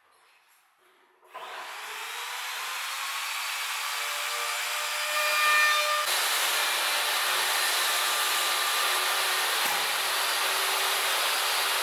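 An electric woodworking power tool starts up about a second in, its whine rising as it comes up to speed. It then runs on as a loud, steady rushing whir while it works on wood.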